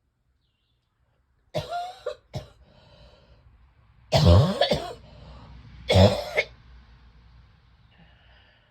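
A person coughing hard in several separate fits, the two around the middle the loudest, with breathing heard between them. It is a chesty cough from heavy chest congestion that is not yet breaking up.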